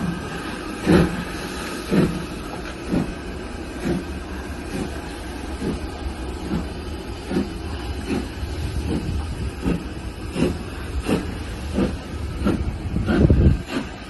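Ex-LNER B1 steam locomotive 61306 working hard as it pulls its train away, with steam hiss and the rumble of the coaches. Heavy regular beats come about once a second at first and quicken to about one every 0.7 s as it gathers speed.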